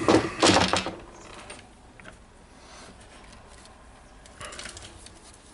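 Hand-handling of the circuit board and its wiring as they are fitted into the circular saw's plastic housing. A loud scraping rustle comes in the first second, then quieter small clicks and a brief rustle a little after four seconds in.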